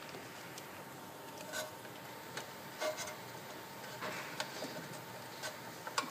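A few soft, scattered clicks and rustles of a plastic oxygen mask, its bag and tubing being handled and pressed into a metal deployment container, over a faint steady hiss.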